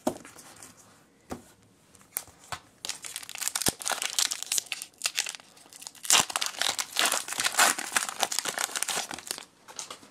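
Foil wrapper of a Pokémon booster pack crinkling and tearing as it is ripped open by hand, starting about three seconds in and loudest in the second half. A few faint clicks come before it.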